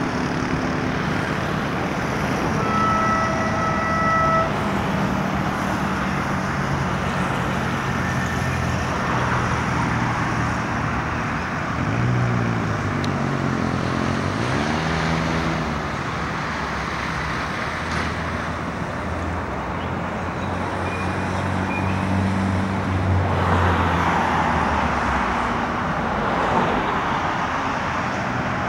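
Road traffic on a busy road: cars and motorbikes passing, engines humming and revving. A horn sounds one steady note for about a second and a half, about three seconds in.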